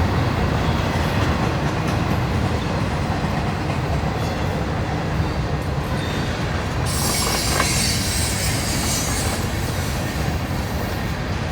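Freight cars of a CSX train rolling past with a steady rumble of wheels on rail. A spell of high-pitched wheel noise rises about seven seconds in and fades a couple of seconds later.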